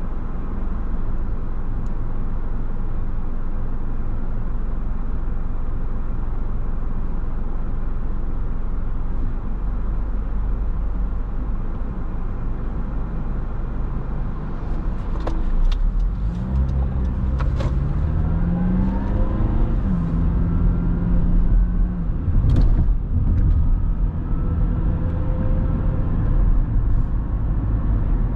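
Car driving noise: a steady low road and tyre rumble. About halfway through, an engine note comes in and rises in pitch as the car accelerates, and a few sharp knocks are heard.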